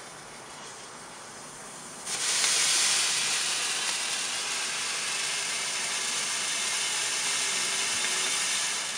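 Comet Small Pagoda ground fountain firework: a faint fizz of small sparks, then about two seconds in it bursts into a loud, steady hiss as it sprays a tall column of sparks.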